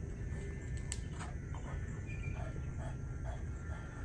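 Dog panting in a quick steady rhythm, about three breaths a second, starting about a second in over a low steady rumble.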